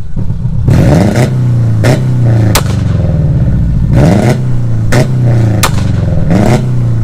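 2002 Subaru Forester's non-turbo 2.5-litre flat-four held flat out against a Bee R rev limiter, the revs dipping and climbing back over and over. Each ignition cut sets off a sharp, gunshot-like bang from the cut-open exhaust, about nine of them, half a second to a second apart.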